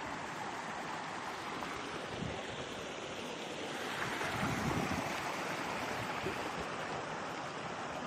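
Small stream running over rocks: a steady rushing of water that grows a little louder about halfway through.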